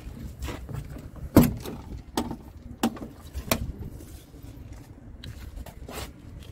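Scania R truck cab door being opened: a sharp latch click about a second and a half in, then three more clicks and knocks over the next two seconds as the door swings open.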